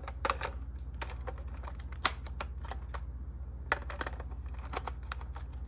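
Irregular light clicks and taps from handling a Sony Video 8 camcorder's plastic body and controls, over a steady low hum.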